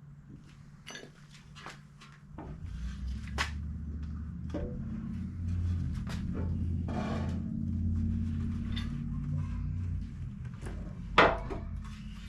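Metal clicks and knocks from winch mounting hardware being handled: square nuts and bolts being fitted into the winch base, with one sharp knock near the end. A steady low hum runs underneath from about two seconds in.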